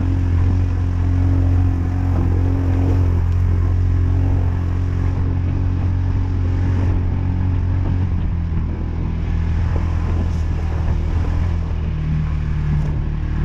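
A vehicle engine running steadily, its pitch shifting about eight seconds in and again near the end.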